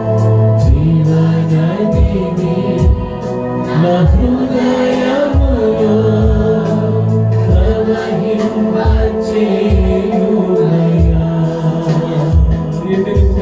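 A man singing a Telugu Christian worship song, accompanied by sustained keyboard chords and steady low drum beats.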